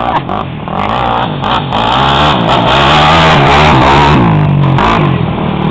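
Racing ATV (quad) engines revving hard as they pass, several pitches rising and falling at once; the sound builds to a peak about three seconds in and eases off near the end.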